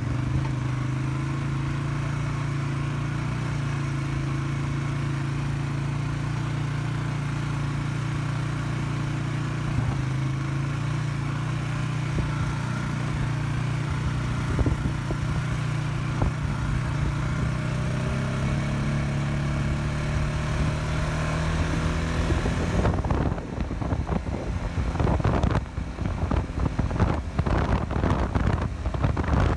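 Polaris Sportsman 570 ATV's single-cylinder engine running steadily under throttle on a trail ride, its pitch slowly rising as the quad picks up speed. About three-quarters of the way in, wind buffeting the microphone takes over as the quad nears 50 km/h.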